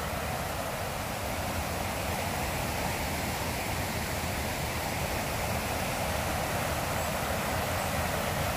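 Creek water spilling over a low dam, a steady rushing sound.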